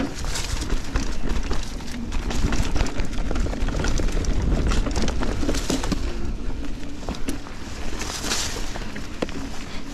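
Giant Trance 29 mountain bike ridden fast on dirt singletrack: Maxxis tyres rumbling over the trail, with many sharp clicks and knocks as the bike rattles over roots and bumps, and wind buffeting the camera microphone. A louder rush of hiss comes about eight seconds in.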